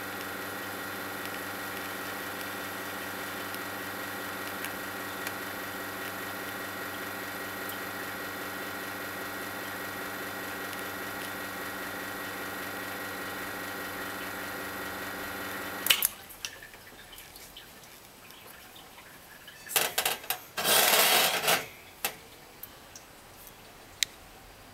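Cimbali M39 Dosatron espresso machine's pump running with a steady hum during the espresso extraction, then cutting off with a click about sixteen seconds in as the shot ends. About four seconds later comes a brief loud burst of noise and clatter.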